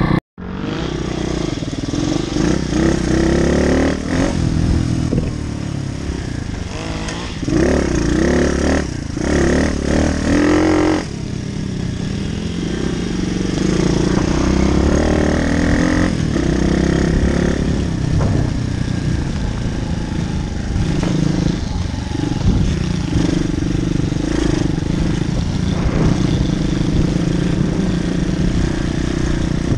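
Pit bike's small single-cylinder engine, heard from on board, revving up and down as it is ridden hard over grass and dirt, with several sharp bursts of revs about a third of the way in. The sound drops out for an instant just after the start.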